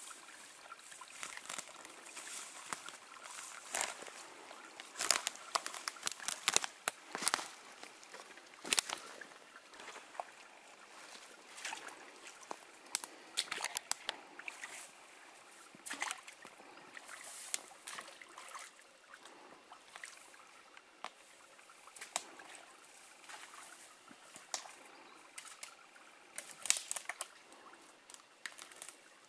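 Footsteps pushing through dry grass and forest undergrowth: irregular rustling and crackling of brush, with sharp twig snaps, the loudest about five to nine seconds in.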